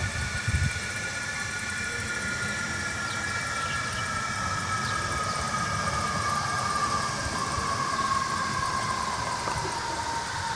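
Steady drone of a distant engine, several tones gliding slowly down in pitch, over a low rumble.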